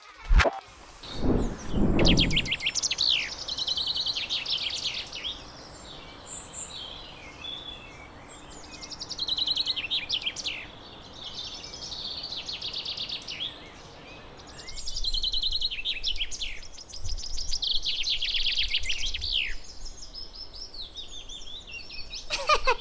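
Common chaffinch singing: several song phrases, each a rapid run of notes ending in a down-slurred flourish, with background hiss. A loud click and a low thump come within the first two seconds.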